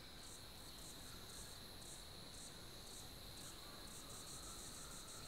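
Faint insects, likely crickets, chirping in short, regular high-pitched pulses about twice a second, quickening a little past the middle, over a steady high insect trill.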